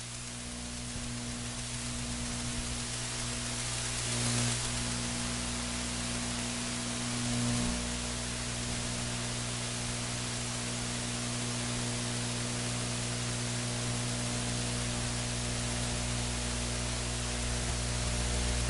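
Steady hiss with a low electrical hum from an open audio feed while nobody speaks into it, with two slight swells about four and seven seconds in.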